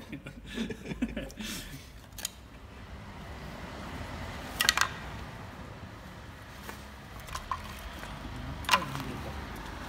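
Chicken skin frying in a pan over a rocket stove with a steady low sizzle, with two sharp wooden clacks of firewood being fed into the stove, one near the middle and one near the end.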